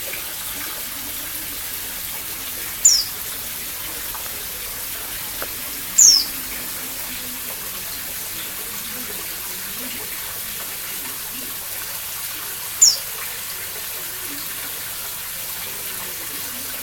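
Pleci dakun white-eye giving three short, high calls, each sliding downward in pitch, several seconds apart, over a steady hiss.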